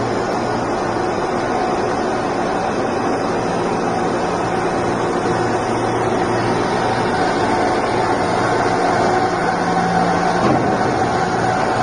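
Rubber-roller quail egg peeling machine (QP500) running: a steady mechanical noise from its conveyor and rotating rollers, with a constant hum under it.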